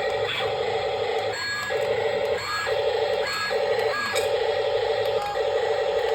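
Small electric motors of a toy RC excavator whirring with a fast buzzing pulse, broken four times by short gaps in which a whine rises and falls.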